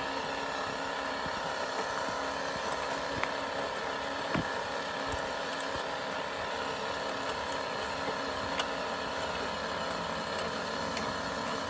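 Radio-controlled scale truck driving slowly over gravel: a steady mechanical hum from its drive, with an occasional light knock.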